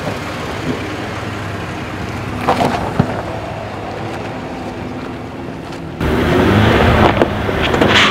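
Jeep engine running at low revs as the vehicle crawls over rock, with a few short knocks and scrapes about two and a half to three seconds in. About six seconds in the sound jumps louder: an engine revving up and down, with wind on the microphone.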